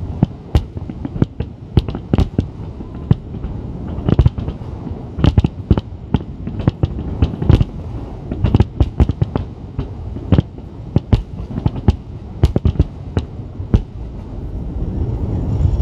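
A barrage of aerial firework shells bursting, several sharp bangs a second over a low rumble. The bangs stop near the end, and a swelling rush of noise takes over.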